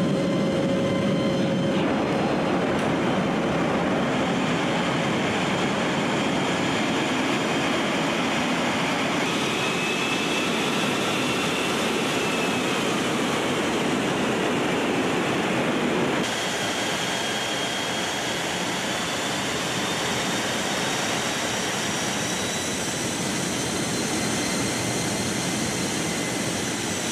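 C-17 Globemaster III jet engines running: a loud, steady rush with a faint high whine that drifts slowly up and down in pitch. The noise drops a little and changes character about sixteen seconds in.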